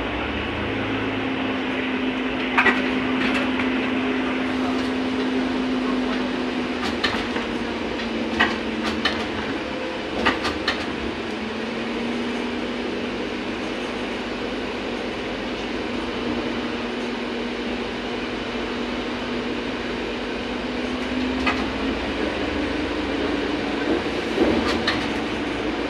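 Ride inside a VMZ-100 trolleybus under way: the electric traction drive's steady hum, its pitch sagging in the middle and climbing again near the end as the speed changes, with a few sharp rattling knocks from the body now and then.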